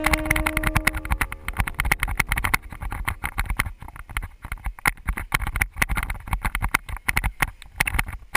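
Mountain bike rattling and jolting over a bumpy dirt trail: a rapid, irregular clatter of knocks picked up by a camera mounted on the bike. A held note of background music fades out in the first second.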